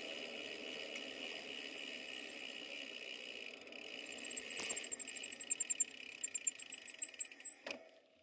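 Bicycle rear freehub ticking rapidly as the rider coasts, starting about halfway through, over a steady faint hiss of riding. The sound cuts off abruptly near the end.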